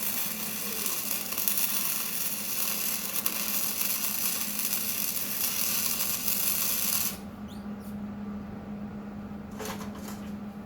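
Handheld power tool running under load, with a dense high hiss that cuts off abruptly about seven seconds in, then one short burst near the end.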